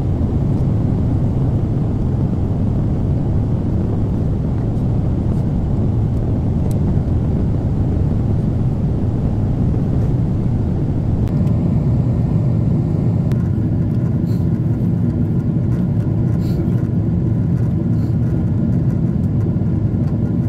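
Steady low rumble of a jet airliner's cabin in cruise: engine and airflow noise. A faint higher hum joins about halfway through.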